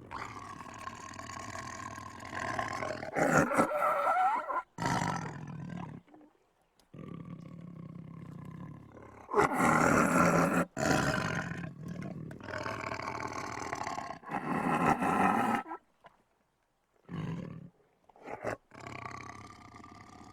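Tiger growling in a string of long, deep growls, several swelling into loud roars around 3, 10 and 15 seconds in, with short pauses between them.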